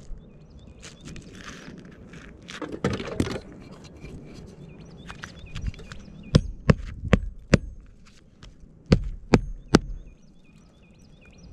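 Hammer blows nailing down a pipe boot flange on an asphalt-shingle roof: seven sharp strikes, a quick run of four and then three more after a short pause. A few seconds before the strikes there is a short scraping rustle as shingles are lifted by hand.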